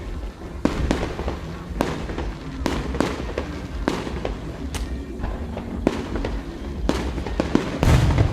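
Fireworks display: aerial shells going off in an irregular string of sharp bangs, about one a second, over a steady low rumble. The loudest and deepest boom comes near the end.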